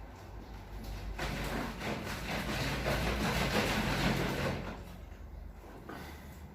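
Water and the probiotic mixture being mixed in a container: a noisy rush that builds about a second in and dies away shortly before five seconds.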